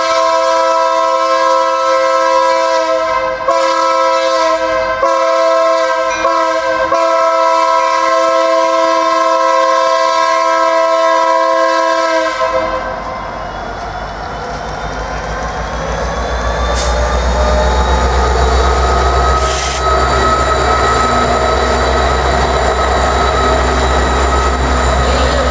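Norfolk Southern freight train's lead diesel locomotive sounding its air horn, a chord of several notes held in one long blast with a few brief breaks, cutting off about twelve seconds in. Then the diesel locomotives rumble past close by, growing louder as they reach the tracks in front.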